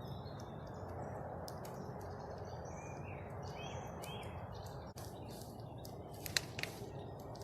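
Small birds chirping in short calls over a steady low rushing background noise, with a few sharp clicks about six seconds in.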